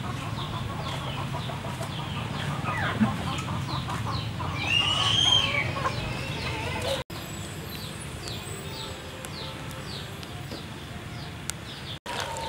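Farmyard chickens clucking and peeping in quick repeated chirps, with a louder rooster crow about five seconds in, over a steady low hum in the first half.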